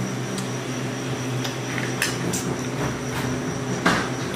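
Small clicks and smacks of ice cream being eaten from a paper cup with a plastic spoon, the clearest about four seconds in, over a steady electrical hum with a thin high whine.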